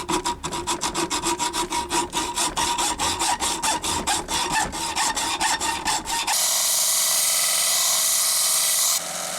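Fast, even scraping strokes of a hand tool working a metal rod, about six strokes a second, switching after about six seconds to a steady loud hiss that drops away shortly before the end.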